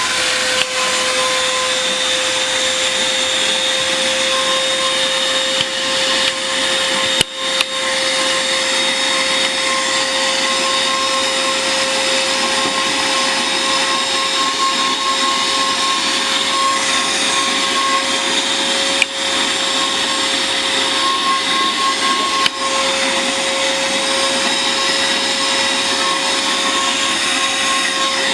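Bolde Super Hoover vacuum cleaner running steadily with an even motor whine while vacuuming a floor mat, with a few brief knocks along the way.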